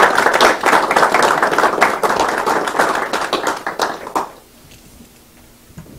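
A small group of people applauding, the clapping dying away about four seconds in.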